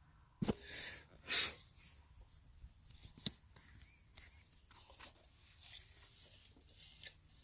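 Faint rustling with a few scattered sharp clicks, and a short breathy hiss about a second and a half in.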